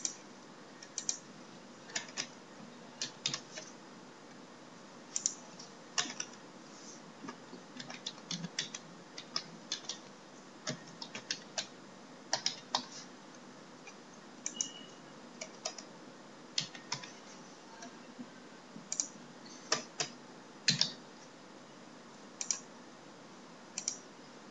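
Computer keyboard being typed on, with some clicks, in short irregular spurts: single keystrokes and small clusters separated by pauses of about a second.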